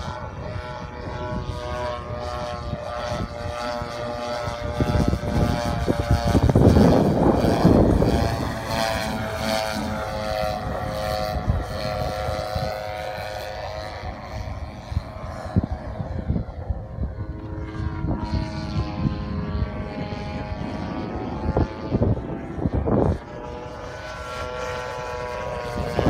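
The Desert Aircraft DA-60 single-cylinder two-stroke petrol engine and propeller of a large radio-control Extra 300 aerobatic plane in flight, its buzzing note rising and falling in pitch as the plane manoeuvres. Gusts of wind buffet the microphone, strongest several seconds in and again near the end.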